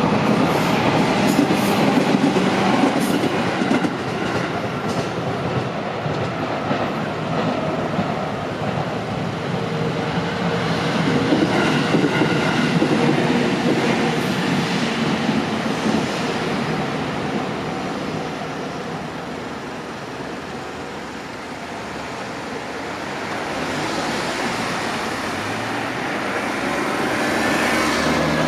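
A train on the JR Tokaido Main Line passing through the level crossing: a steady rumble of wheels on rail, with sharp clicks of the wheels over rail joints in the first few seconds. It fades about three-quarters of the way through, then the level swells again near the end.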